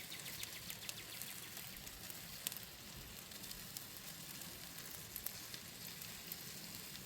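Faint steady sizzling with many small scattered crackles, as of meat cooking over heat.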